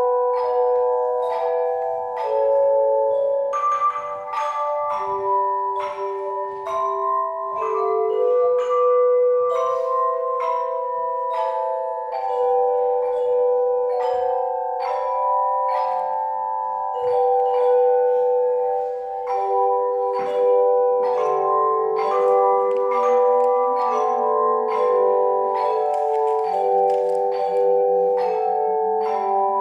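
A tone chime ensemble plays a slow hymn tune. Struck notes ring on and overlap into sustained chords, and lower notes join in about two-thirds of the way through.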